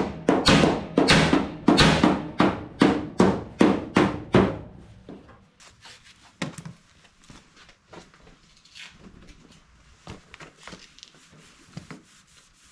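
Rapid hammer blows on the dented front sheet metal of a 1979 Ford F250, about three strikes a second, each with a short ring. The blows stop after about four and a half seconds, leaving only a few faint taps.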